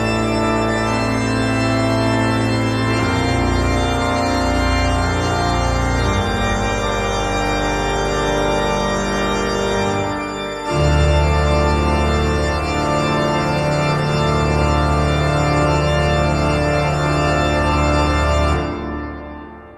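Background music of long, held organ chords; the chord shifts to a deeper, louder one about ten seconds in, and the music fades out near the end.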